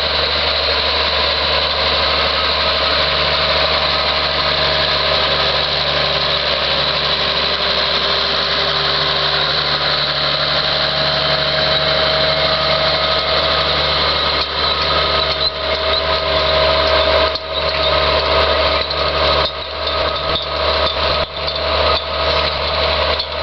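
Massey Ferguson 2640 tractor's six-cylinder Perkins diesel engine running steadily under load while pulling a plough. In the second half the sound turns uneven, dipping and swelling.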